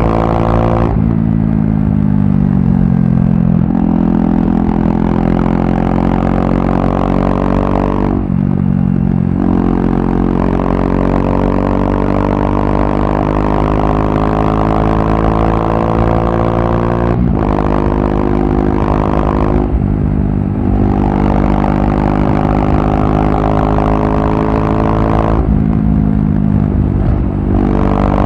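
KTM RC390's single-cylinder engine through a barrel exhaust with the dB killer removed, pulling hard under way: its pitch climbs steadily and drops sharply at each gear change, several times over.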